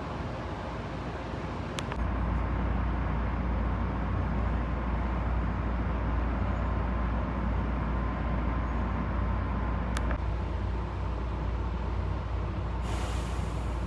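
JR Shikoku 7200 series electric train running, a steady low rumble that grows louder about two seconds in. Two sharp clicks are heard, and a short hiss of air comes near the end.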